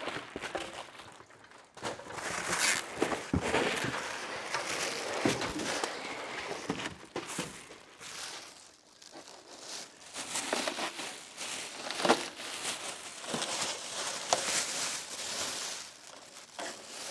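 Plastic packaging crinkling and rustling in irregular bursts as a new radiator is lifted out of its foam-padded shipping box and unwrapped from a silver plastic bag. There is a brief lull around the middle.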